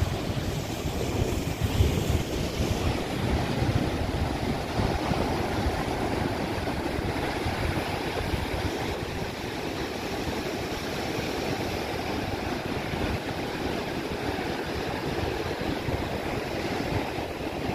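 Surf breaking and washing over a rocky shore, a steady rushing noise, with wind buffeting the microphone.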